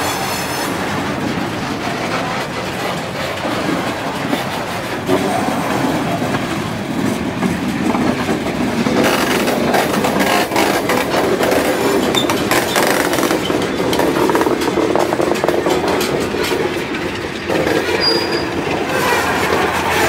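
Freight train cars rolling past close by: a steady rumble of steel wheels on the rails with rapid clicking over the rail joints. A short high squeal comes near the end.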